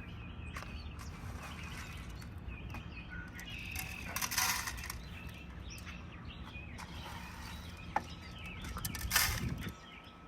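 Small birds chirping and twittering over a steady low hum, with two brief rustling bursts and a sharp click.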